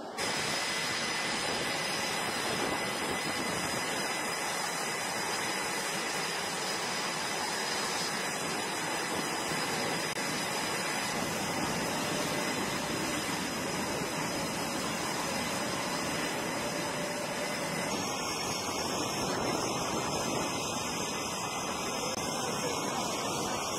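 Jet aircraft engines running on a carrier flight deck after start-up: a steady roaring hiss with a faint high turbine whine over it, changing slightly about 18 seconds in.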